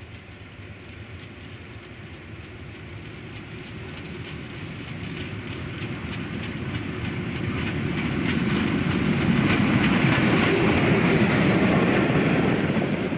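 DR class 35.10 steam locomotive 35 1097-1 and its passenger train approaching and passing close by, growing steadily louder until the engine goes past near the end, with the clatter of wheels over the rails.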